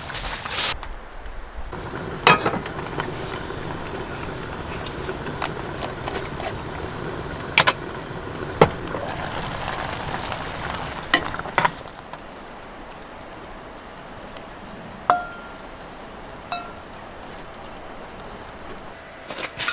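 Steady sizzling hiss with scattered sharp clicks and clinks, which drops quieter about twelve seconds in; later come two short ringing clinks.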